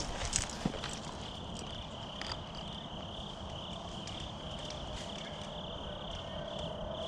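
Crickets chirping in a steady, pulsing high trill, with a few light crunches in the first second.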